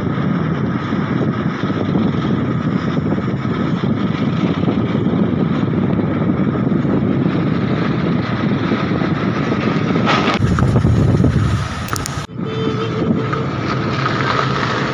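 Steady rushing wind and road noise of a car driving along, picked up by a phone held outside the window. About twelve seconds in it breaks off suddenly, then goes on as a quieter, steadier car hum.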